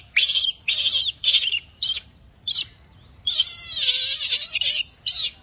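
Newborn rhesus macaque screaming: a series of shrill, high-pitched cries, several short ones and then one long drawn-out scream about three seconds in.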